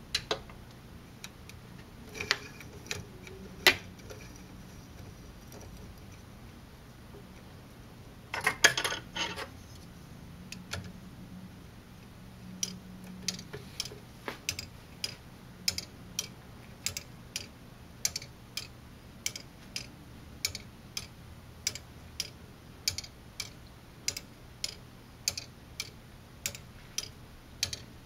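A Lego anchor clock escapement ticking: plastic pallets strike the teeth of the escape wheel as the balance-arm pendulum swings, at about two ticks a second. Before the ticking settles in there are a few separate clicks and a short clatter about eight seconds in, as the parts are handled and set going.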